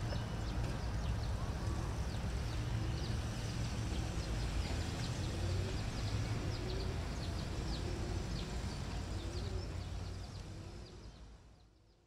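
Outdoor ambience: a steady low rumble with many short bird chirps over it, fading out near the end.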